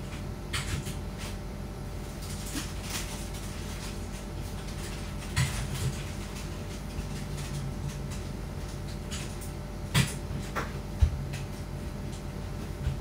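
A scattered series of sharp household knocks and clicks over a steady low hum, with the loudest knocks about halfway through and twice near the end.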